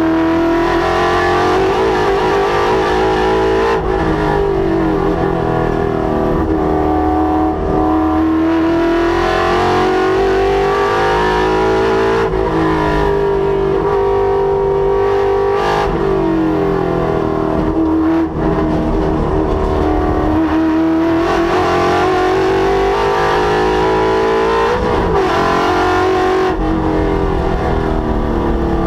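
Ford Coyote 5.0-litre V8 in a Mustang, driven hard on a race track. The engine note climbs under acceleration, then drops back at shifts and braking, again and again.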